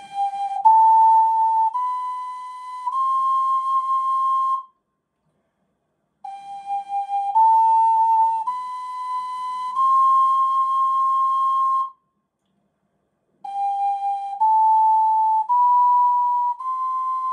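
Ocarina playing the rising scale so-la-si-do three times over. Each run is four held notes, each step a little higher, with short pauses between runs. The first run is played in tune as the correct version, and the last one is completely off in pitch.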